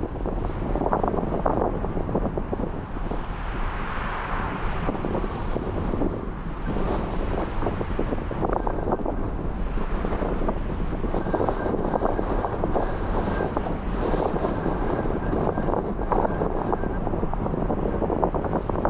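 Strong, gusty wind buffeting the microphone, with the sea washing against the rocks underneath. A faint thin whistle comes in for several seconds in the middle.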